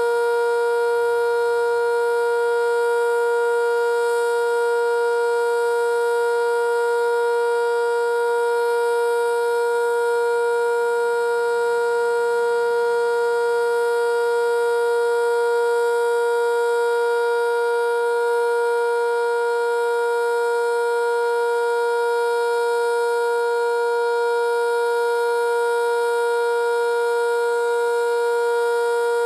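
Sentry 5V outdoor warning siren sounding the Alert signal: one steady, unwavering tone with strong overtones, holding the same pitch and loudness throughout.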